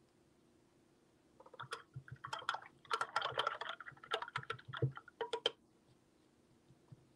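Small objects handled on a tabletop: a quick, irregular run of clicks, taps and light rattles, starting about a second and a half in and lasting about four seconds, with a few dull knocks among them.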